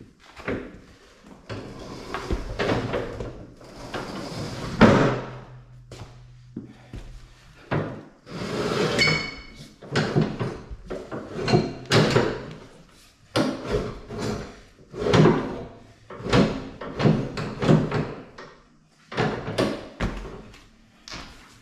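Irregular knocks and clanks of metal parts and tools being handled, with a short metallic ring about nine seconds in.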